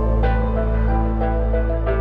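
Calm new-age style background music: sustained low tones under a slow melody, with soft struck notes entering about a quarter second in and again near the end.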